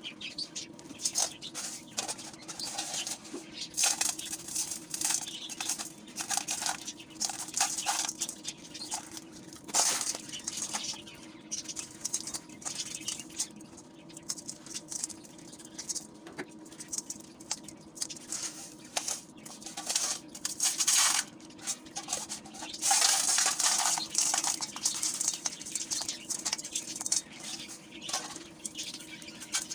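Dry, gritty stony lumps crumbling and crunching between hands over a steel pot, the grit pattering and crackling onto the metal and the pile. There are several louder bursts; the longest is a rush of falling grit about three quarters of the way through. The audio plays at double speed.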